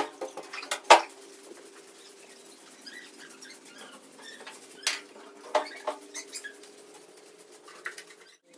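Hand broom (jhaadu) sweeping a dusty concrete floor: scratchy strokes with sharp taps and knocks, the loudest right at the start and about a second in, and a cluster more around five to six seconds.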